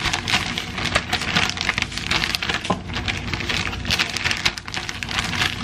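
Plastic bag of dry seasonings being shaken and bounced in the hands: a continuous crinkling rustle of the plastic with the powder shifting inside.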